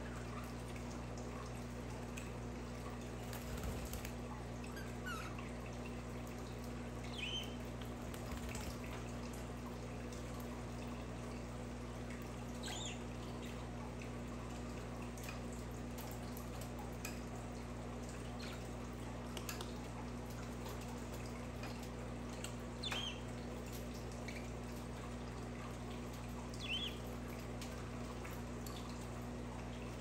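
Budgerigars giving short, high single chirps spaced several seconds apart, over a steady low hum.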